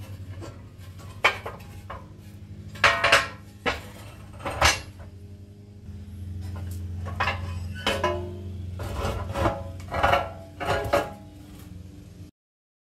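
Metal pedal-tractor body pieces being pulled apart and handled on a wooden workbench: irregular clanks, knocks and scrapes, over a steady low hum. The sound cuts off abruptly near the end.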